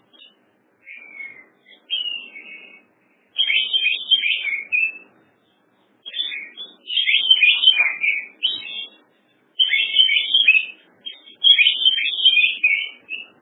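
A songbird singing in bursts of rapid, high chirping phrases, each about a second long, separated by short pauses.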